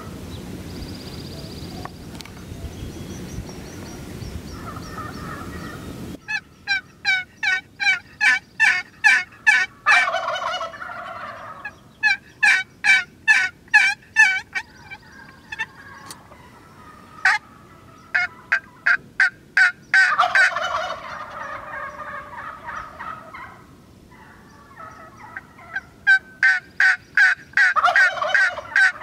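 Wild turkeys calling: rapid strings of sharp yelps and cutts, broken by a rattling gobble three times, about a third of the way in, at two-thirds and near the end.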